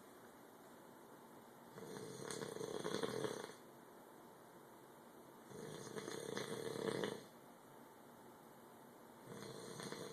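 A passed-out drunk man snoring loud: three long snores, one about every three and a half to four seconds, the last starting near the end.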